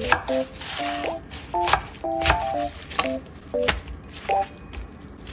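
Chef's knife slicing through blanched napa cabbage leaves, the blade knocking on a wooden cutting board at irregular intervals, about once or twice a second, over light, playful background music.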